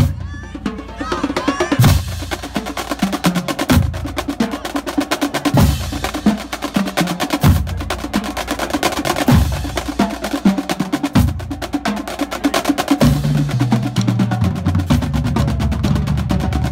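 Marching band drumline playing a cadence: rapid snare drum strokes and rolls over tuned marching bass drums. In the last few seconds the bass drums step through a run of different pitches.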